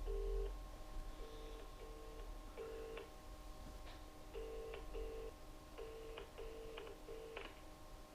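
Mobile phone beeping: about ten short, low two-tone beeps at uneven spacing, some in quick pairs and some with a light click, as a phone number is keyed in.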